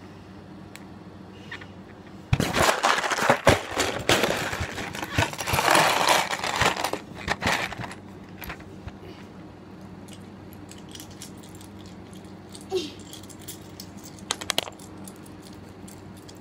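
Loose plastic Lego pieces clattering and rattling in a box as they are scooped and shaken, a dense run of clicks for about five seconds, then a few stray clicks near the end.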